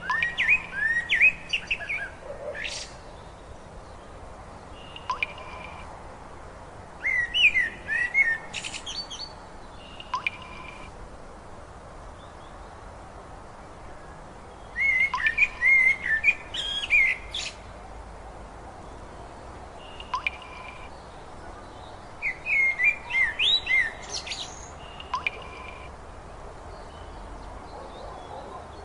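A songbird singing: short phrases of quick rising and falling whistled notes, one about every seven or eight seconds, with single short held whistles between them, over a faint steady hiss.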